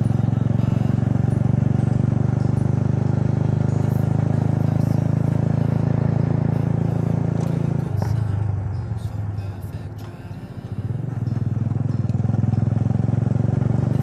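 Motorcycle engine running steadily under throttle while being ridden. About eight seconds in, the engine note drops as the throttle is eased, then builds again about three seconds later.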